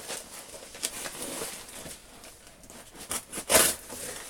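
Packaging wrapping rustling and crinkling as a parcel is unwrapped by hand, in short irregular bursts, with one louder rustle about three and a half seconds in.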